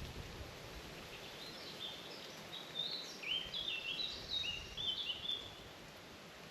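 A songbird singing one phrase of quick, short high notes, beginning about a second and a half in and stopping about five and a half seconds in, over a steady background hiss.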